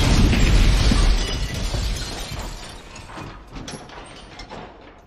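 Heavy rumble after an explosion dying away over a few seconds, with scattered clatter of falling debris in the second half as it fades out.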